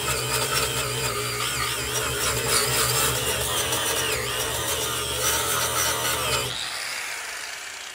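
Angle grinder with an abrasive disc grinding an aluminum truck panel, running steadily under load. It is switched off about six and a half seconds in and winds down.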